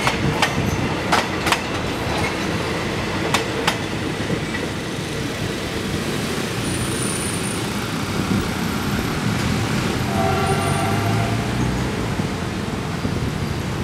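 Philippine National Railways diesel multiple unit passing, its wheels clicking sharply over rail joints for the first few seconds, then a steady rumble as it moves away. A horn sounds briefly about ten seconds in.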